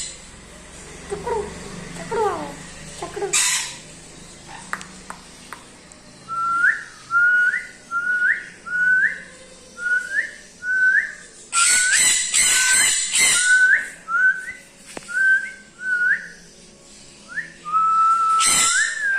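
A run of about sixteen short whistled notes, each flicking upward at the end, repeated steadily at a little under two a second, then one longer whistle. Loud harsh parrot screeches break in a few times, briefly.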